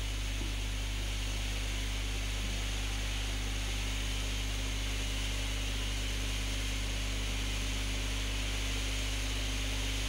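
Steady low hum with an even hiss underneath, unchanging throughout, with no distinct knocks or other events.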